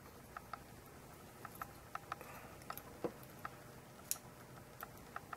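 Faint, irregular small clicks and ticks of a tiny receiver's metal header pins and a flight-controller circuit board being handled and fitted together.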